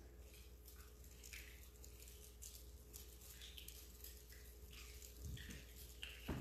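Near silence: room tone with a steady low hum and scattered faint clicks and rustles, and a soft knock near the end.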